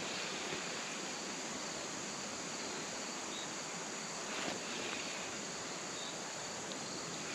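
Steady, faint outdoor background hiss with no distinct events.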